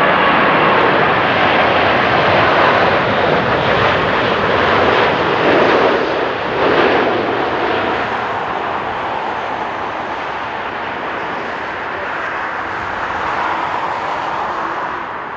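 Boeing 787 Dreamliner's turbofan engines passing low overhead on final approach, with a falling whine at the start. The jet noise is loudest a few seconds in, then fades steadily as the airliner heads down the runway to land.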